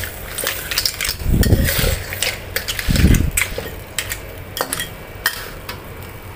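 Metal spatula scraping and clinking against a steel wok while razor clams in sauce are stirred over low heat, with a light sizzle underneath. Two dull low thuds come about a second and a half and three seconds in.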